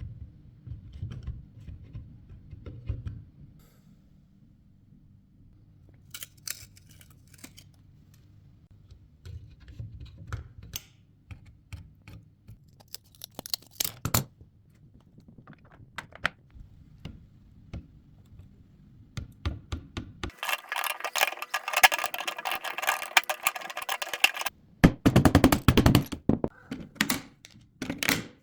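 Clicks, knocks and thunks of computer hardware being handled and fitted, scattered and irregular. About twenty seconds in comes a few seconds of louder continuous noise, followed by a run of heavy thumps.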